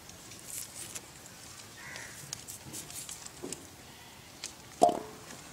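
Small red onions being peeled and trimmed against an upright boti blade: dry papery skins crackling with scattered light clicks. A brief, much louder sound comes near the end.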